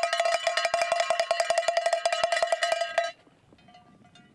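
A hand-held metal bell shaken rapidly, clanging about a dozen times a second over one steady ringing pitch, then cutting off suddenly about three seconds in.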